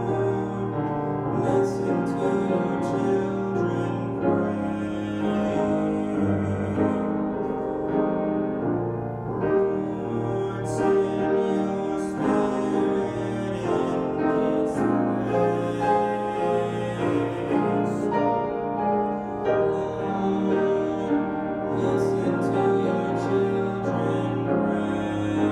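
Music with piano, held chords changing every second or two.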